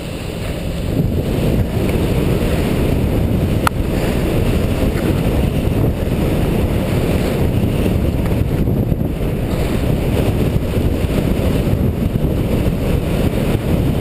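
Wind rushing over the microphone of a downhill skier's camera, a steady low rumble that swells about a second in as speed builds. A single sharp click sounds a few seconds in.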